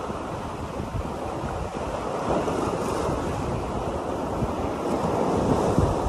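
Sea surf washing in over rocks, with wind buffeting the microphone. The surf swells twice, about two seconds in and again near the end.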